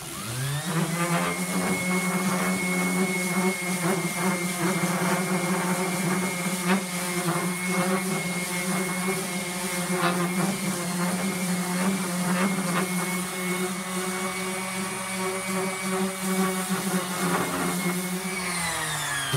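Electric random-orbit palm sander starting up and running steadily with a hum and a high whine as it sands a wooden cabinet face frame, smoothing out router burn marks at the corners. It is switched off near the end and spins down, its pitch falling.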